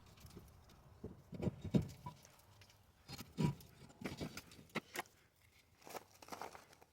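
Faint, irregular knocks and scrapes of metal parts being handled, as the exhaust manifold of a 5.7 HEMI engine is worked out of the engine bay.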